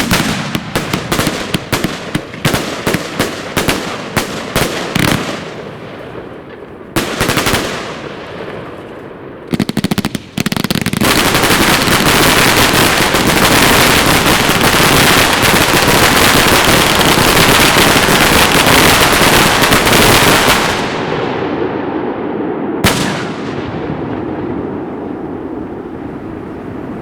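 Fireworks going off. First comes a fast string of sharp bangs, then a couple of heavier blasts, then about ten seconds of dense, loud, continuous crackling that dies away, with one more sharp bang near the end.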